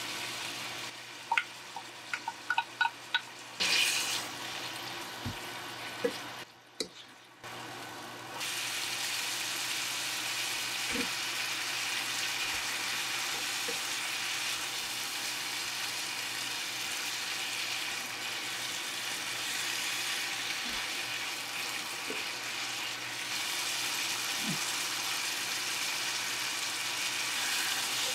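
Pork belly and vegetables sizzling in a frying pan as a wooden spatula stirs them, with a quick run of light taps in the first few seconds and then steady, even sizzling.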